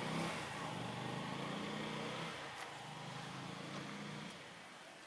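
A motor vehicle engine running steadily with a low hum, then fading away about four seconds in.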